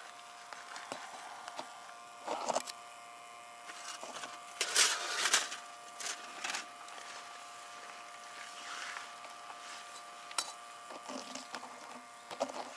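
Camping hot-water boiler running with a faint steady hum. A hand handling the canister stove and its metal windscreen makes a few short clatters and rattles, the loudest about five seconds in.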